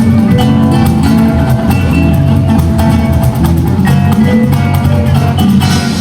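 Background pop song with guitar, no vocals in this stretch.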